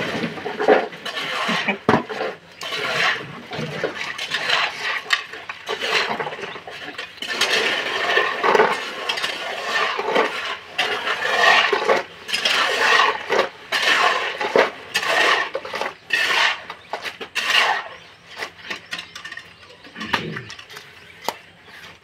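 Shovels scraping through wet concrete and knocking against concrete-carrying pans as they are filled by hand, a run of irregular scrapes and clanks.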